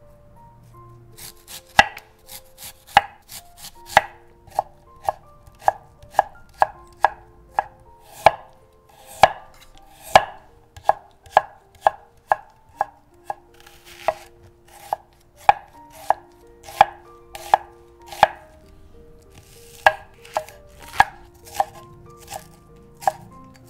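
Chef's knife slicing carrot and then green onion into thin strips on a wooden cutting board. The blade strikes the board in an even rhythm, just under two sharp knocks a second, starting about a second in.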